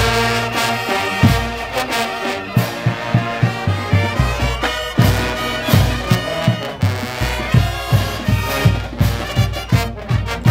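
College marching band playing a brass-heavy tune, with trumpets and sousaphones over a steady drum beat and a loud hit right at the start.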